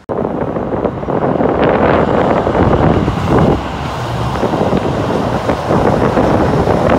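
Keio Line electric train running across a railway bridge: a loud, steady rumble of wheels on the bridge with a few short knocks, mixed with wind on the microphone.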